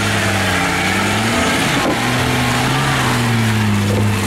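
Nissan Patrol 4x4's engine working under load as it drives through a deep muddy rut, its pitch rising and falling with the throttle and dipping briefly about two seconds in, over a steady hiss.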